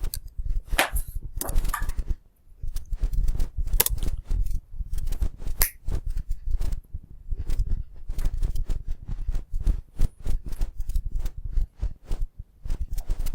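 Computer keyboard and mouse clicking in quick, irregular runs, close to the microphone, with dull desk knocks under the clicks.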